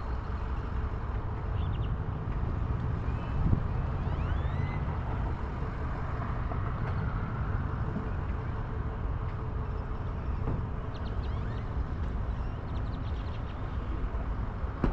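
Steady road and wind rumble from a vehicle travelling on the road, heard from a camera on the back of a boat on tow, with a few faint high chirps or squeaks over it.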